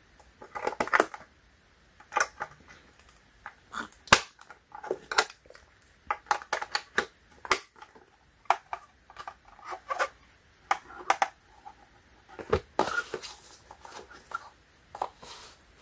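AAA batteries clicking into the plastic battery compartment of a digital kitchen scale and the compartment cover snapping shut, with scattered clicks and knocks of plastic being handled. A heavier thump about twelve seconds in as the scale is turned over and set down.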